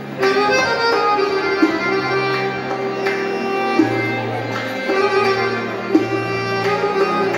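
A live Uzbek folk ensemble plays an instrumental passage: accordion and keyboard hold sustained melody notes over changing bass notes. A doira frame drum beats time, with sharp strokes standing out every second or two.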